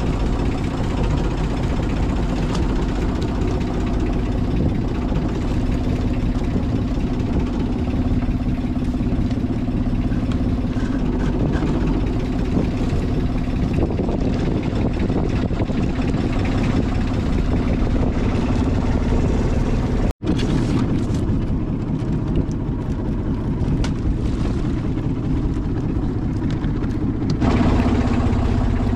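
Small fishing boat's engine running steadily with a constant hum, broken by a momentary dropout about twenty seconds in and a little louder near the end.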